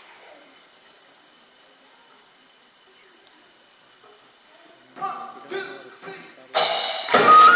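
Live band in a concert hall: a lull with only faint steady hiss, then a few soft pitched notes about five seconds in, before the full band comes in loudly and suddenly near the end.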